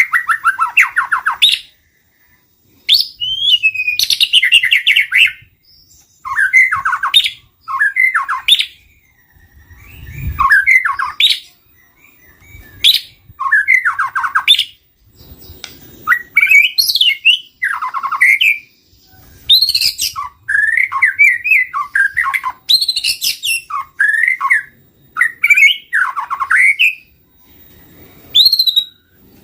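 White-rumped shama singing: loud, varied phrases of whistles, rapid trills and chirps, each a second or two long, with short pauses between them.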